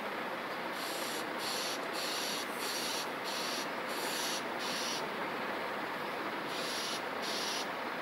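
Outdoor ambience: a steady background hiss, with a series of short, high-pitched hissing buzzes a couple of times a second that pause for about a second and a half past the middle.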